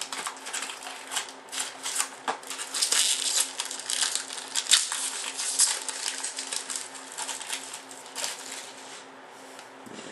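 Trading cards and their packaging being handled: a dense run of crisp crinkles, rustles and small clicks, busiest in the middle and thinning out toward the end.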